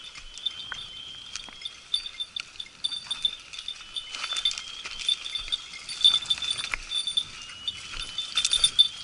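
A hunting dog's collar bell jingling over and over, a high ringing tone struck about twice a second, as the dog moves through the brush, with scattered crunches of footsteps on dry grass and stones.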